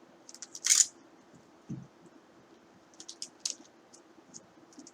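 Scattered light clicks and ticks from a trading card being handled, with one brief louder swish about three-quarters of a second in and a soft thud a second later.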